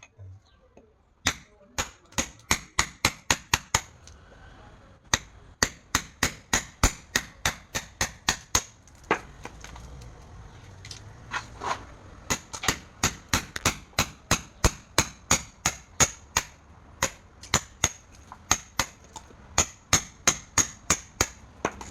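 Hammering: runs of sharp strikes about three a second, pausing briefly about four seconds in and again for a few seconds about nine seconds in.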